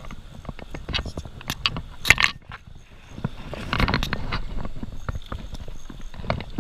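Clicks and rattles from a spinning reel being cranked and handled close to the microphone, irregular and sharp, the loudest about two seconds in.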